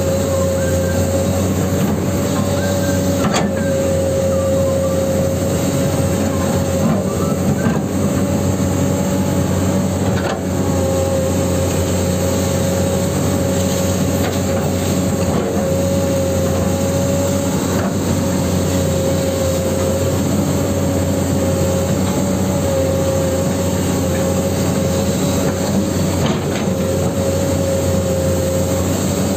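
Huina 1594 RC excavator working in sand: a steady mechanical drone with a constant whine, broken by a few faint clicks.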